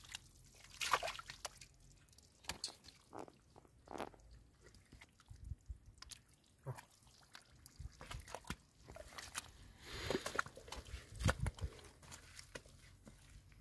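Hands sloshing and squelching through shallow muddy water in irregular wet splashes. Near the end come heavier thuds of feet squelching through mud.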